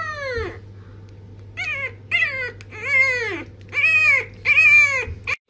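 Bulldog puppy howling: a string of high, thin howls that each rise and then fall in pitch, one trailing off about half a second in, then five more coming about every half second from a second and a half on, with a short yelp at the very end.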